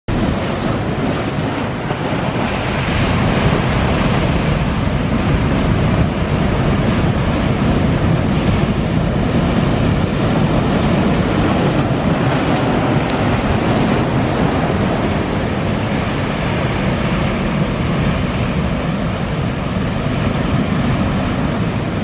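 Sea waves breaking against rocks and surf foaming around them: a continuous, steady rush of water.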